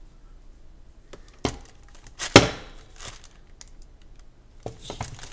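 A plastic action figure being handled and stood up on a tabletop: a few sharp clicks and knocks from its joints and its feet against the table, the loudest about two and a half seconds in, with a few lighter clicks near the end.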